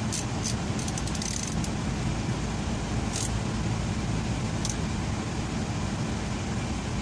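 Engine idling steadily with a low, even hum, with a few sharp metallic clicks and jingles from handling tools or wires.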